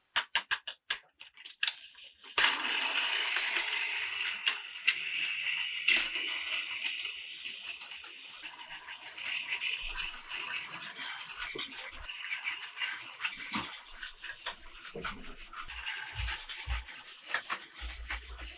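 Battery-powered toy train running along plastic track, its small motor whirring steadily with scattered clicks from the track. The run starts after a quick series of clicks in the first two seconds.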